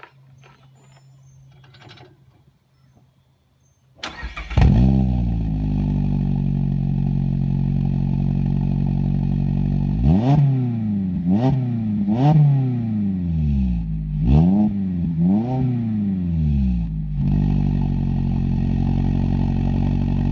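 A Mazda MX-5 Miata RF's four-cylinder engine is started about four seconds in, flares briefly and settles to a steady idle heard through its exhaust. Around the middle it is revved five times in quick succession, each rev climbing and falling back, then it idles steadily again.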